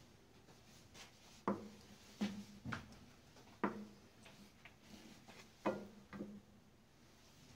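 Wooden spatula knocking against the side of a metal pot while stirring a thick milk-and-sugar mixture: about six irregular knocks, each with a short ring from the pot.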